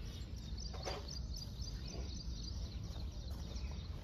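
Outdoor ambience: a steady low rumble with faint birds chirping now and then.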